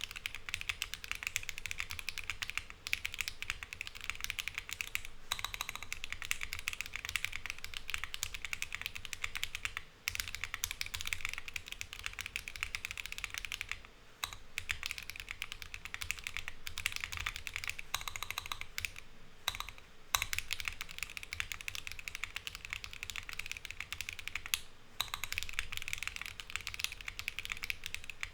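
Mechanical keyboard with Sillyworks Hyacinth switches, polycarbonate transparent keycaps and a polycarbonate plate being typed on in a fast, continuous run of keystrokes. The typing breaks off briefly a few times.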